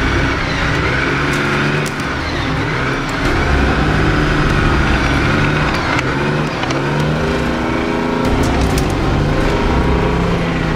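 Tracked armoured vehicle's engine running under load as it drives, its pitch rising and falling, with a brief drop in level about two seconds in.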